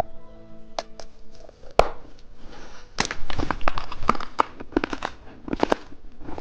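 Plastic candy wrapper crinkling and tearing in irregular crackles, sparse at first and busiest in the second half.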